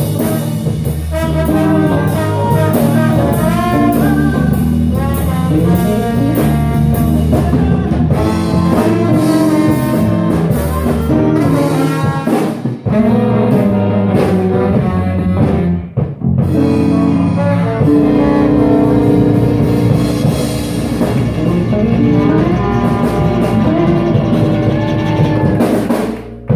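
Live band playing an instrumental passage, with horns over drum kit and guitar. The music breaks off briefly twice partway through, then falls away near the end.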